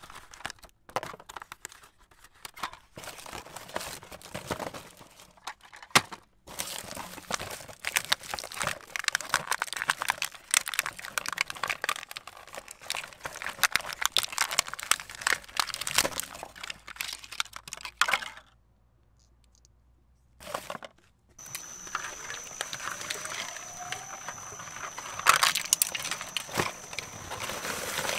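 Cardboard toy boxes being torn open by hand and plastic packaging crinkled: a dense run of rips, crackles and crunches, broken by about two seconds of near silence roughly two-thirds of the way through. After the gap a faint steady high whine comes in under the crinkling.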